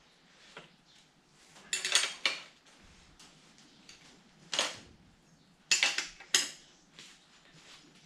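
Metal hand tools and small steel bicycle parts clinking and clanking as they are handled during work on a kids' bike's rear hub: about five sharp metallic clinks, a second or two apart.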